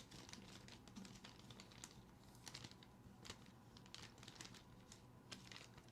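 Near silence with faint, irregular clicks scattered throughout.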